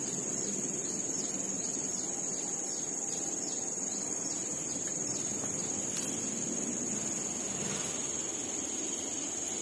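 Insects, crickets, chirring steadily in a continuous high-pitched drone, over a low, even background noise.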